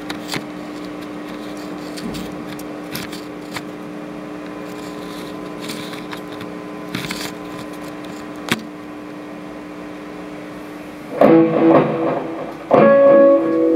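A steady electric hum with a few handling clicks and knocks, then about 11 seconds in an electric bass played through an amplifier comes in loud with plucked notes. It breaks off briefly and returns with held notes near the end.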